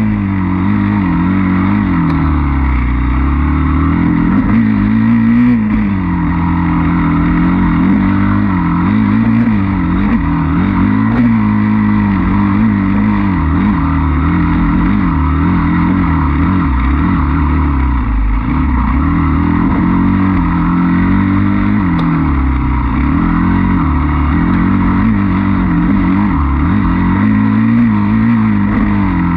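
Enduro dirt bike engine running hard as it is ridden along a woods trail, its pitch rising and falling again and again with throttle and gear changes. It is loud and close, with no pauses.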